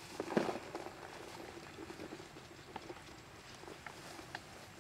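Light knocks and taps on a wooden plate, a cluster of them about half a second in and then a few scattered ticks, as food is handled and set down on it.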